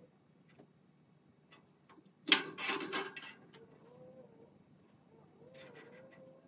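A steel welding fixture square being handled on a steel welding table: a short metallic clatter, about a second long, starting a little over two seconds in.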